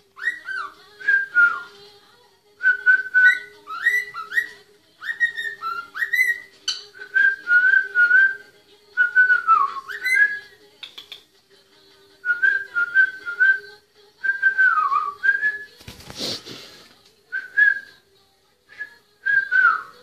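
Cockatiel singing: repeated short whistled phrases of sliding, rising and falling notes with brief pauses between them. A short burst of rustling noise cuts in about sixteen seconds in.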